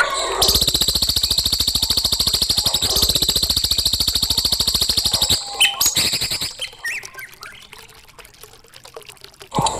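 Recorded songbird song played as a masteran (song tutor) for young cage birds: a fast, rattling high trill held for about five seconds, then a few short whistled notes before the phrase starts again near the end.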